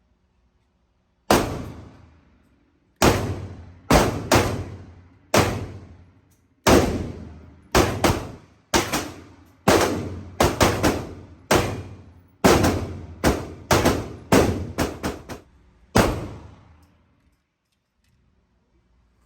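A rapid, irregular series of about two dozen loud, sharp bangs, some in quick pairs, each ringing out briefly. They stop about three seconds before the end.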